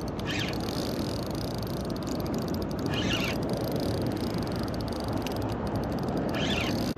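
Steady wind and water noise around a wader in open bay water, broken by three short raspy sounds about three seconds apart.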